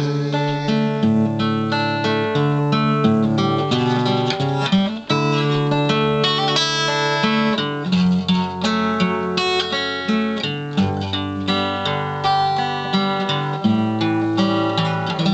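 Acoustic guitar played solo, with no singing: an instrumental break of quickly picked melody notes over held bass notes, with a brief gap about five seconds in.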